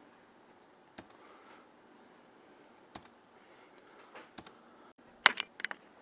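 Computer keyboard keystrokes: single key clicks about one, three and four seconds in, then a quick run of several louder clicks about five seconds in.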